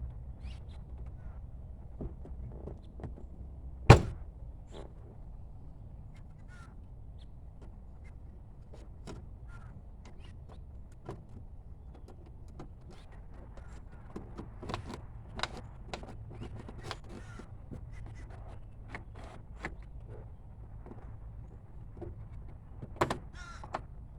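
Scattered clicks and taps of plastic car door trim parts being handled and pressed into place, with one loud, sharp snap about four seconds in and a few louder clicks near the end.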